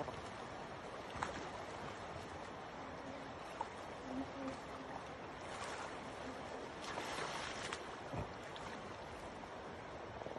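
Steady rush of a shallow river's water, with a few brief faint clicks.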